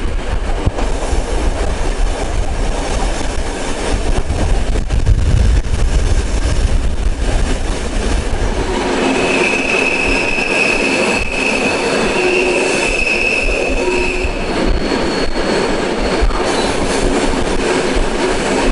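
Flåm Railway train running on its rails, heard from inside the carriage: a steady low rumble with scattered rail clicks, and from about nine seconds in a high, steady wheel squeal that fades after a few seconds and comes back near the end.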